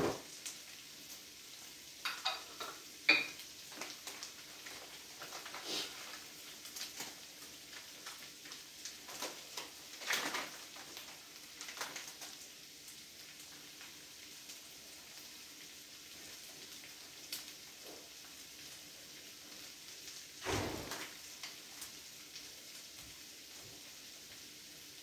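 Diced potatoes frying in oil and butter in a stainless steel skillet, a steady low sizzle. Scattered clinks and knocks of kitchenware being handled; the sharpest come about two to three seconds in, and there is a duller knock about twenty seconds in.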